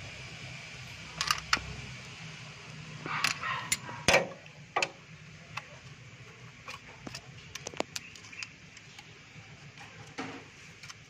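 Metal clicks and clinks of a wrench and screwdriver on the rocker-arm adjusting screws and lock nuts of a Mitsubishi 4G13 engine, during a valve clearance adjustment. There is a cluster of sharp knocks in the first five seconds, the loudest about four seconds in, then lighter ticks, over a low hum that fades out about two seconds in.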